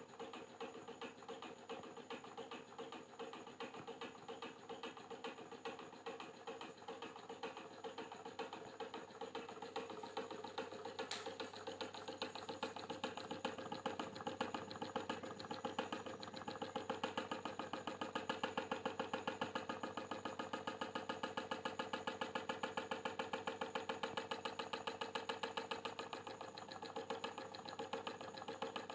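Electric fan running with an abnormal rhythmic noise, a fast even pulsing several times a second over its steady hum. The pulsing grows louder and more regular about halfway through.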